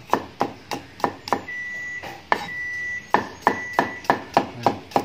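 Cleaver slicing garlic cloves on a wooden cutting board: quick, regular knocks of the blade on the board about three a second, with a brief pause near the middle. A steady high beep-like tone sounds behind it for a few seconds midway.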